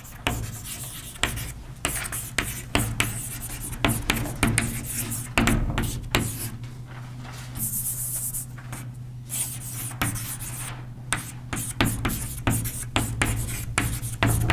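Writing on a board: a long run of quick scratching strokes and sharp taps, with a steady low hum underneath.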